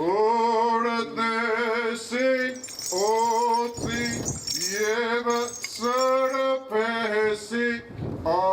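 A man's voice chanting an Armenian church hymn or psalm during a consecration rite: long held notes with a slight waver, sung in phrases about a second long with brief breaks between them.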